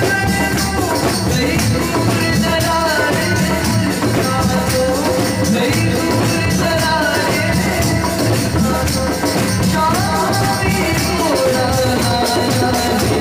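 A boy singing a Masih geet, a Christian devotional song, live through a microphone, over a steady rhythmic percussion accompaniment.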